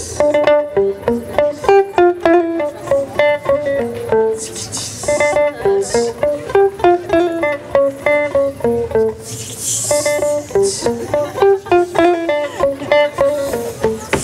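Klezmer band music: a quick melody of short, plucked-sounding notes over an accompaniment, with bright hissy accents about every four to five seconds.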